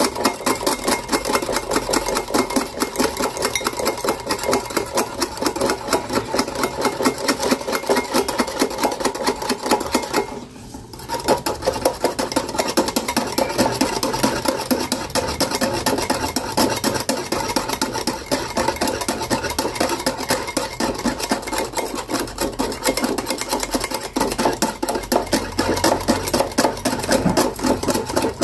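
Metal wire whisk beating coffee powder, sugar and water against a glass bowl in rapid strokes, whipping the mixture into foam. The beating pauses briefly about ten seconds in.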